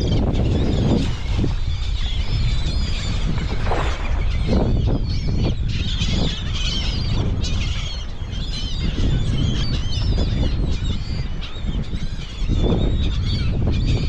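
A large flock of seagulls calling constantly, many overlapping cries, while working a school of baitfish. Wind rumbles steadily on the microphone underneath.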